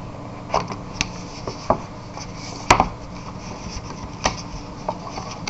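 Hands handling a small cardboard box and the e-cigarette parts in its tray: scattered light taps and clicks, the loudest about two and a half seconds in.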